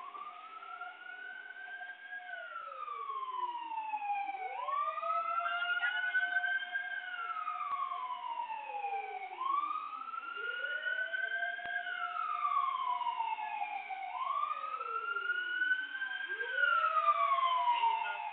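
Fire-response emergency sirens wailing, each sweep rising in pitch and then falling more slowly, about one cycle every five seconds, growing louder toward the end.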